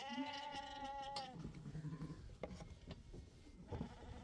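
A sheep bleating once, a held call about a second long, followed by a few faint knocks.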